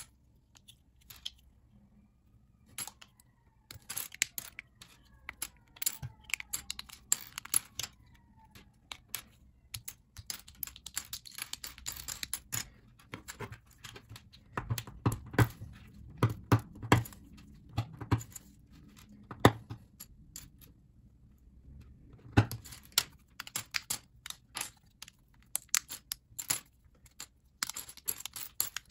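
LEGO bricks and plates being pulled apart by hand: irregular sharp plastic clicks and snaps, with loose pieces clattering onto a pile on a tabletop. A run of dull knocks comes about two-thirds of the way through.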